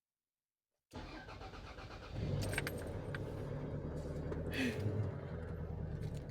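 2001 Toyota Nadia's engine starting after three months standing: about a second in the starter cranks, the engine catches and settles into a steady idle, with a few light rattles of keys or trim.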